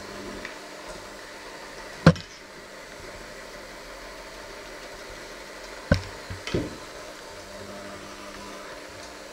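Electric hand mixer running with its beaters in a stainless steel bowl of flour dough, a steady motor hum. The beaters knock sharply against the bowl twice, about two seconds in and about six seconds in, the second followed by a few lighter knocks.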